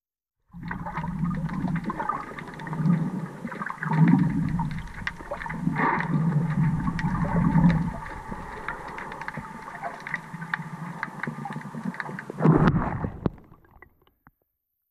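Underwater sound picked up through a GoPro's waterproof housing as a swimmer moves through the water: a muffled rush of water with low surges every second or two and scattered clicks and crackles. A louder surge comes about twelve and a half seconds in, then the sound cuts off suddenly.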